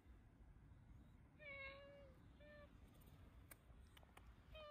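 A stray cat meowing quietly: one meow about a second and a half in, a short second meow right after, and another starting near the end.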